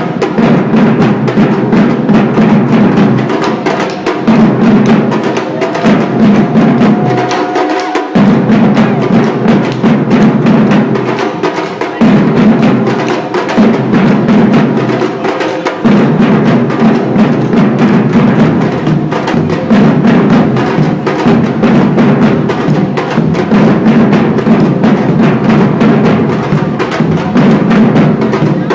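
Batucada percussion ensemble playing a loud, driving groove: deep bass drums under a dense pattern of sharp, rattling hits. The bass drums pause briefly several times in the first half.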